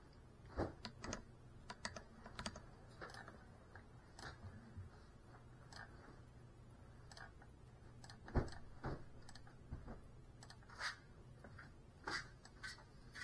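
Scattered light clicks and knocks at irregular intervals over a faint, steady low hum; the loudest knock comes about eight seconds in.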